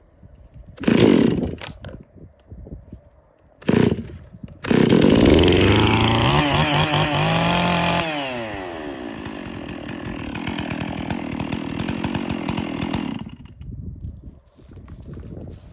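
Old Stihl 046 two-stroke chainsaw being pull-started. Two short bursts come first, then it catches about five seconds in. It revs up with a rising whine for a few seconds, drops back to a steady lower run, and cuts off a couple of seconds before the end.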